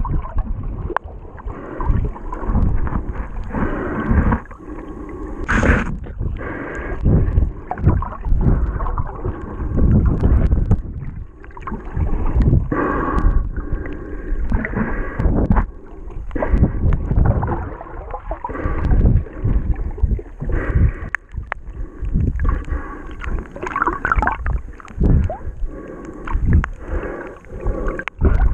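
Muffled underwater sloshing and gurgling of water moving around a camera held just below the surface, in irregular surges every second or two. A sharp knock comes about six seconds in.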